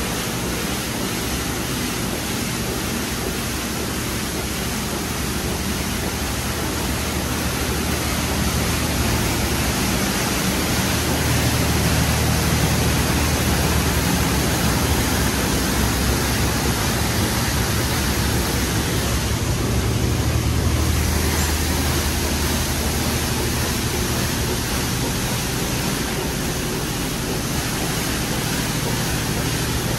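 Coleman Hanna Water Wizard touch-free car wash gantry spraying high-pressure water over a car: a steady hiss of spray with a low hum underneath that grows louder for a stretch in the middle, then eases.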